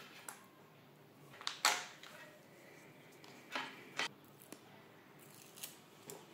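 Handling noises: a few short clicks and rustles of plastic and wires being moved in the hands, the loudest about one and a half seconds in, with two more clicks a second or two later and lighter ones near the end.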